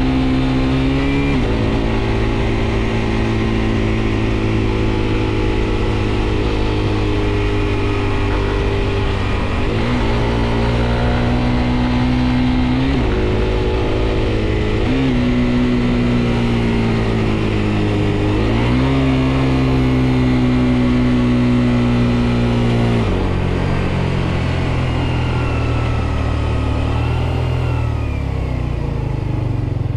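Suzuki GSX-R125 single-cylinder engine pulling the bike along, its pitch climbing and dropping sharply several times as it goes through the gears, then settling to a lower, steadier note about two-thirds of the way in.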